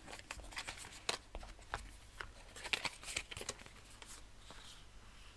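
Cards being handled: irregular light clicks and slides as cards are drawn from a deck spread on a cloth-covered table and held in the hands.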